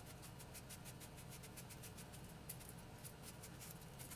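Serrated vegetable peeler scraping the skin off an apple in quick, faint, repeated strokes.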